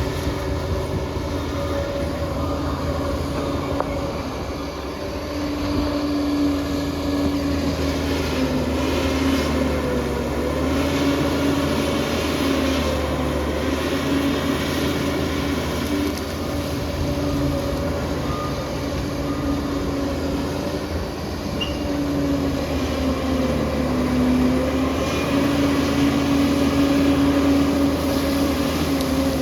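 Liebherr crawler bulldozer's diesel engine working under load, its pitch sagging and recovering several times as the machine pushes.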